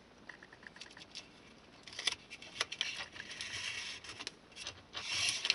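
Masking tape being pulled off and pressed into a small plastic model freight car: faint handling scrapes and small clicks, with a longer rasp near the end.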